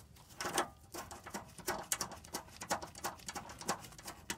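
Irregular light clicks and taps, several a second, of hands handling the metal fuel-line fittings while lining them up on the new lift pump.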